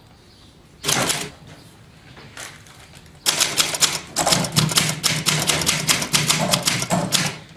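Manual typewriter: one sharp clack about a second in, then a fast, steady run of keystrokes as a line is typed, stopping just before the end.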